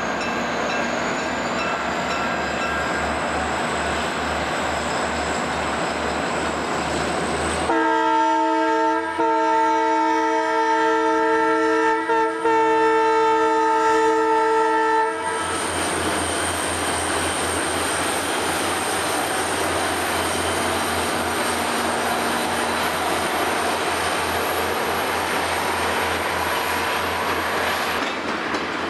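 Diesel passenger train rolling past, wheels clicking in an even rhythm. About eight seconds in, a locomotive air horn sounds one long chord of several notes for about seven seconds, the loudest part, then the train rolls on.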